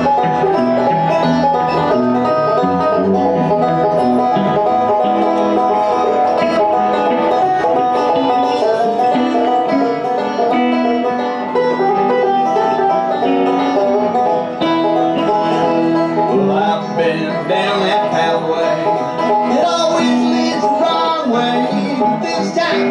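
Live bluegrass played on banjo and electric guitar, with fast picked banjo rolls over the guitar in a mostly instrumental passage.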